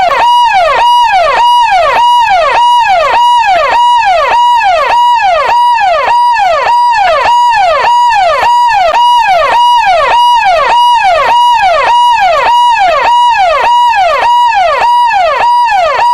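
Electronic police siren sounding a fast repeating cycle, about twice a second: a brief high held note that drops in pitch each time. Loud and unchanging.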